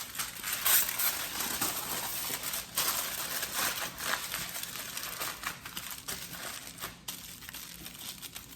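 Wrapping sheet crinkling and rustling in the hands as a log of lazy-cake chocolate-biscuit mixture is rolled up in it, louder at first and softer toward the end.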